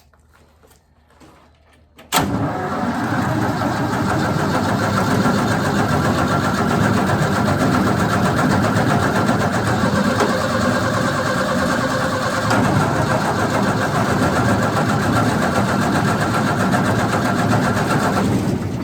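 Wood chipper engine being cranked by its electric starter: a sharp clunk about two seconds in, then about sixteen seconds of steady cranking that stops near the end without the engine taking off. It is close to firing but won't run, which the owner thinks may mean the ignition timing is off.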